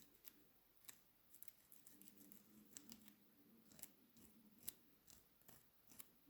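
Faint, irregular clicks and snips of small hand tools or parts being handled, a dozen or so scattered unevenly, over a low steady hum.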